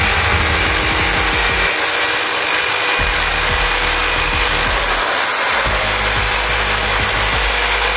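Handheld electric drill running steadily, its bit boring through dry coconut shell.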